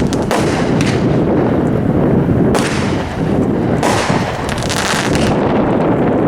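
Legend "Thunder Knight" 500-gram consumer firework cake firing: a dense, continuous barrage of bursts and crackle, with sharper, louder reports about a second in, near two and a half seconds and near four seconds.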